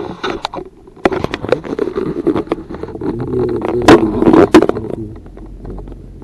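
Chairlift rumbling and clattering on its haul rope. It starts abruptly about a second in, is loudest with two sharp clacks around four seconds in, then fades off.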